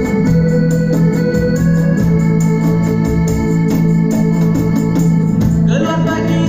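Live band playing an instrumental passage: electronic organ (keyboard) holding sustained chords over a steady drum beat.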